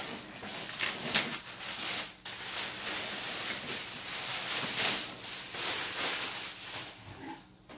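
Clear plastic bag crinkling and rustling as it is pulled off a printer, a dense run of crackles that dies down near the end.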